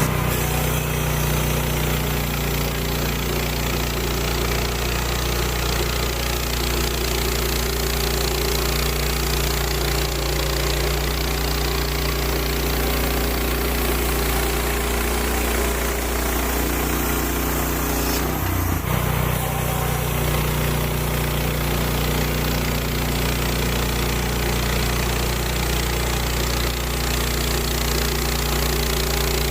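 The engine of a Woodland Mills HM130 bandsaw sawmill running steadily, with a brief change in its note about two-thirds of the way through.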